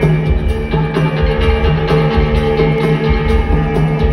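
Live rock band playing an instrumental passage: electric guitar over a steady drum-kit beat, with no singing yet.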